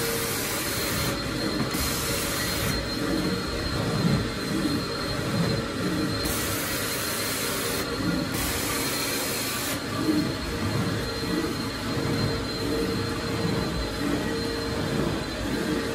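Carpet extraction machine's vacuum motors running with a steady whine while the floor wand is pushed and pulled across wet carpet, sucking up water. A high hiss cuts in and out several times.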